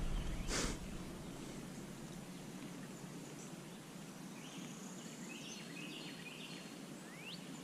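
Quiet outdoor ambience with faint distant bird chirps, including a quick rising whistle near the end; a brief rustle about half a second in.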